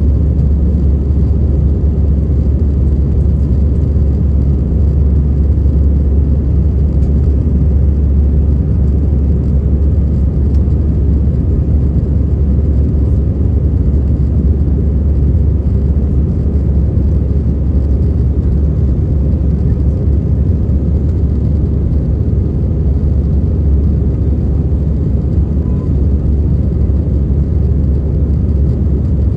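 Steady low rumble of an airliner's engines and airflow, heard from inside the cabin, unchanging throughout.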